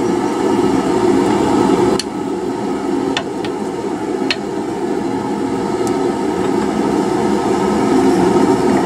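Steady loud roar of running shop equipment, with a few sharp metallic clicks about two, three, four and six seconds in as hot steel bar is twisted in a vise.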